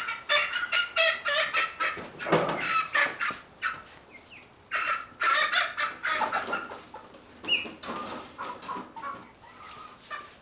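Young chickens clucking and squawking in many short, separate calls as they are caught by hand and handled.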